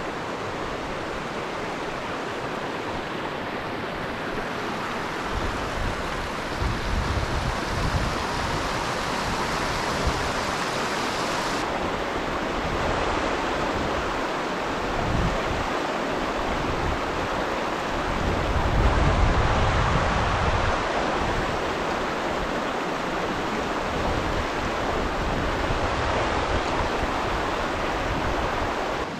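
Mountain torrent rushing steadily, with wind buffeting the microphone in low rumbling gusts twice.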